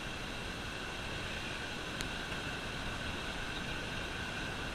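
Steady wash of ocean surf with wind on the microphone, with a single sharp click about two seconds in.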